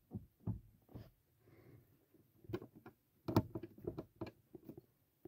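Faint, irregular clicks and knocks from a Chevrolet Prisma's front passenger seat being rocked on its rail, a few at first and then a denser run in the second half. The seat is loose because the rail bolt has worked loose.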